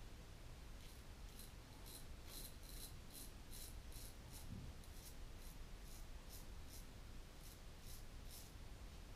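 Portland Razor Sprite 6/8" straight razor scraping lathered stubble from the cheek in a run of short, faint strokes, about two or three a second.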